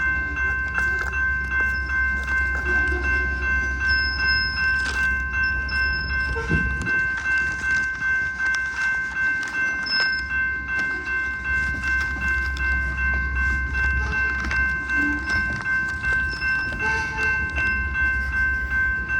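Freight train with two EMD SD70MAC diesel-electric locomotives moving, a heavy low rumble, under a steady high ringing tone that pulses regularly. The rumble eases briefly about a third of the way in.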